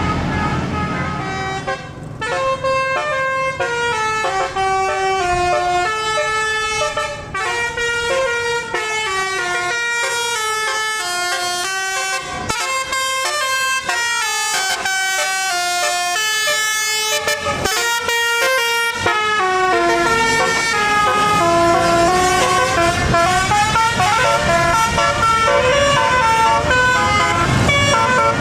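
Tour bus's telolet basuri horn playing a quick melody of stepped horn notes. A bus engine and road noise run underneath and grow louder in the last third.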